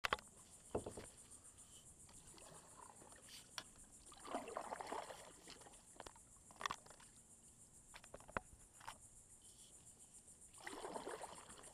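Kayak paddles dipping into the water, with two longer swishing strokes, one about four seconds in and one near the end, and scattered sharp ticks and drips between them. Faint overall.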